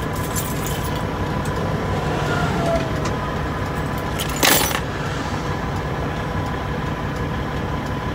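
A semi truck's diesel engine idling steadily, heard from inside the cab. A brief burst of hiss comes about four and a half seconds in.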